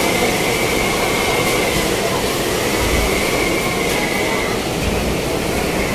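Super-typhoon wind blowing against a building: a loud, steady rush with a high whistle that fades and returns as the gusts rise and fall.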